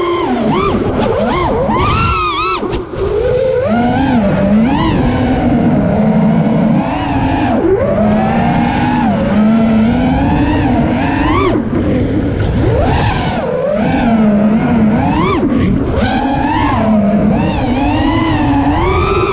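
Four brushless motors (Brotherhobby R4 2450kv) spinning 5-inch three-blade props on a 5-inch FPV freestyle quadcopter, whining loudly with the pitch swooping up and down constantly as the throttle is punched and chopped. Picked up by the onboard GoPro, with wind noise under the motor whine.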